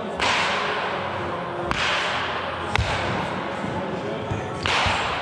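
Baseballs being hit with bats during batting practice: four sharp cracks, each trailing off in the echo of a large indoor hall.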